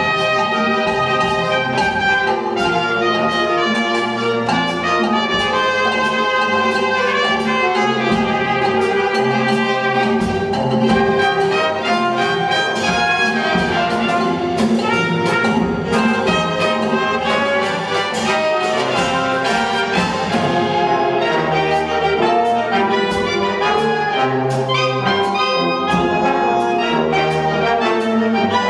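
Live wind band playing a salsa arrangement: saxophones, trumpets, trombones and tuba in full ensemble over a steady percussion beat.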